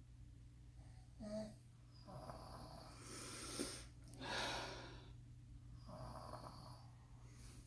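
Father and son snoring in their sleep: a run of about five snoring breaths, the loudest two near the middle, over a steady low hum.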